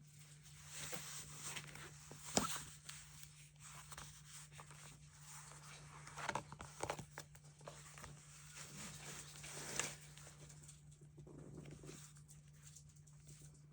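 Paper and stationery being handled at a desk: soft rustles and light taps with a few sharp clicks, the loudest about two seconds in, over a steady low hum.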